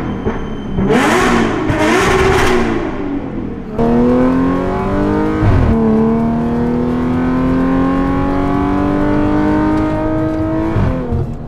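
Audi S5 B8 with an ARMYTRIX valved exhaust, revved in several short bursts and then pulling hard under acceleration. There is one upshift about halfway through, after which the engine note climbs steadily through the gear before easing off near the end.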